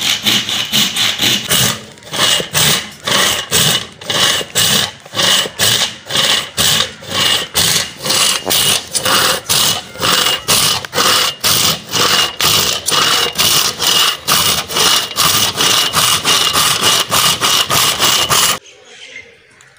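Hand saw cutting through a thick, dry firewood log in fast, even strokes, about two or three a second, with a faint ring from the blade. The strokes stop suddenly near the end as the cut goes through and the log falls into two pieces.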